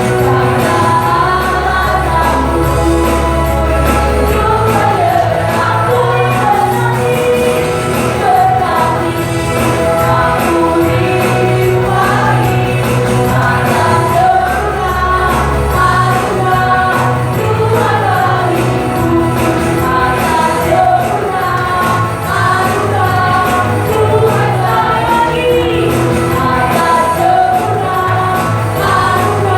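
Church praise team performing a worship song: several voices singing together over a band with a sustained bass line.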